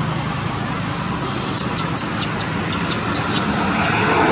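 Steady noise of road traffic, with a quick run of about ten short, high-pitched chirps in the middle. A louder vehicle sound swells near the end.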